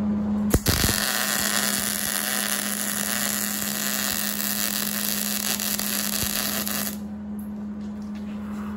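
MIG (wire-feed) welder laying a bead: the arc strikes with a click about half a second in, runs as a steady crackling sizzle for about six seconds, and stops suddenly when the trigger is released. A steady low hum continues underneath.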